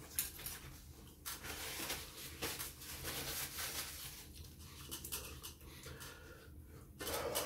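A paper napkin rustling and crumpling as it is picked up and rubbed between the hands, loudest in the first half, with a short louder rustle near the end.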